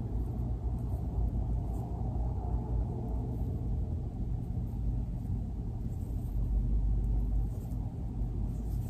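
Steady low rumble of background noise, with a few faint rustles as braided hair is untwisted by hand.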